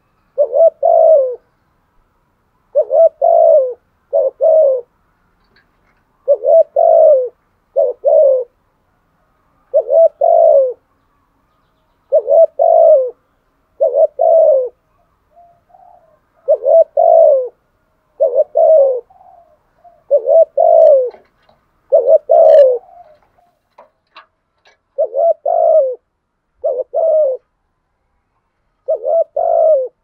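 Spotted dove cooing over and over: short, low, paired coos with a falling pitch, a burst every one to two seconds. This is the challenge or fighting coo that Vietnamese dove keepers use to call wild males.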